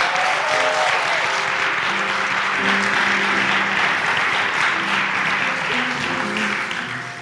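Audience applauding over instrumental music with long held notes; the applause dies down near the end.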